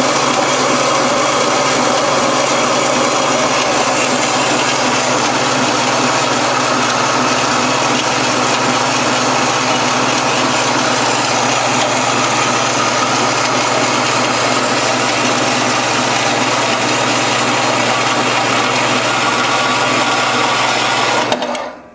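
4x6 horizontal metal-cutting bandsaw running a test cut through metal round stock after its blade guide bearings were adjusted: a steady motor hum with blade-cutting noise. It stops abruptly near the end as the cut finishes.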